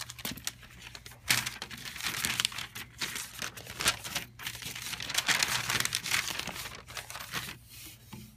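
Paper documentation and packing being handled, crinkling and rustling in irregular bursts.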